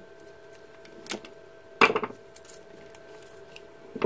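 Light clicks of a power cord being handled, and one sharp snap about two seconds in: a zip tie being cut off the router's cord.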